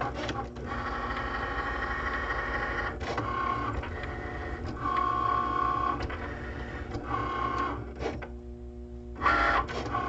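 Cricut cutting machine's motors whining in stretches of a second or two, starting and stopping as the blade carriage and mat shuttle. The machine is finishing its sensor read of the print-then-cut marks and beginning to cut the sticker sheet.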